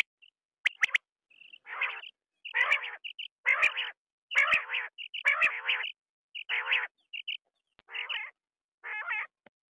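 Quail calling: a few short, sharp pips, then a run of about eight short raspy calls repeating roughly once a second.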